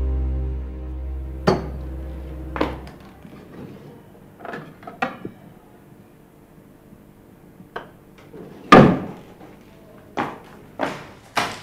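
Soft, sad keyboard music fades out over the first few seconds. Then metal cutlery clinks and clatters as a hand rummages in a kitchen cutlery drawer: a handful of separate knocks, the loudest about nine seconds in, and a quicker run of clatters near the end.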